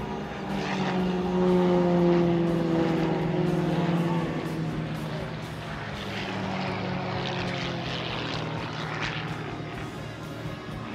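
Game Composites GB1 GameBird aerobatic plane's six-cylinder Lycoming engine and propeller droning through a display pass. The drone swells about a second in and dips slightly in pitch as the plane goes by, then eases to a steadier, quieter drone.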